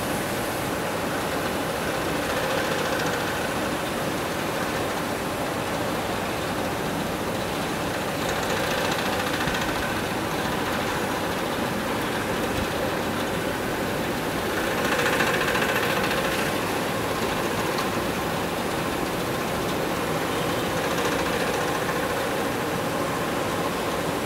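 Gravure printing machine running idle, a steady mechanical machine noise that swells briefly now and then, loudest a little past the middle.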